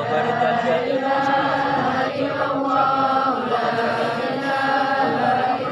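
A group of pilgrims chanting Islamic prayers together in unison, a melodic recitation of long held notes that starts suddenly and stays at a steady level.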